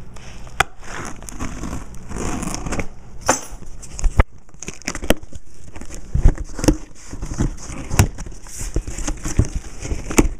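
A shipping package being unpacked by hand: crinkling and rustling of plastic wrapping and bubble wrap, with irregular sharp clicks and knocks from handling the box.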